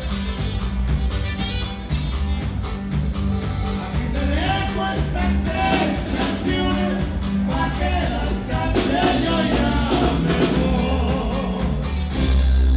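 Live band playing a dance tune with drums and vocals over a steady beat, with singing coming in about four seconds in and a loud low bass note near the end.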